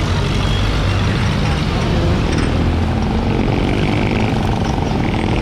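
A vehicle's engine running steadily, a low even hum with road and traffic noise around it, heard from a vehicle on the move.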